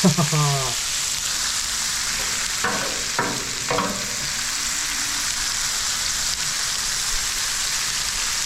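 Food sizzling in butter on a Blackstone flat-top griddle, a steady frying hiss.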